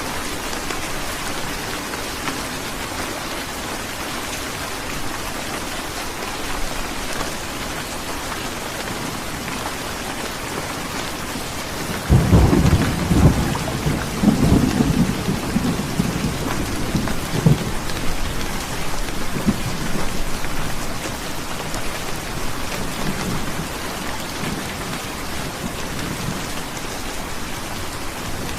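Heavy rain falling steadily. About twelve seconds in a thunderclap breaks out into a low rolling rumble that swells several times and fades away over the next ten seconds or so.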